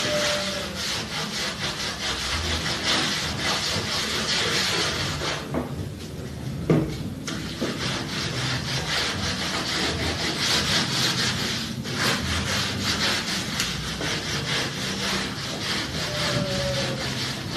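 Dried screen-printing paint being scraped and scrubbed off a tabletop: continuous rough, rapid rasping strokes, easing off briefly about six seconds in and again about twelve seconds in.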